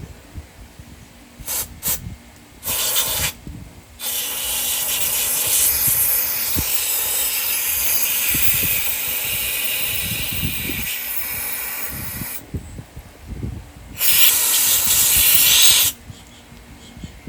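Aerosol can of carburetor cleaner spraying out a generator's mesh screen: a few short puffs, then one long spray of about eight seconds, a pause, and another spray of about two seconds.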